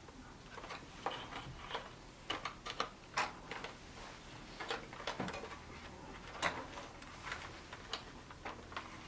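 Irregular light clicks and taps from typewriter parts being handled while a cable connector is fitted into place.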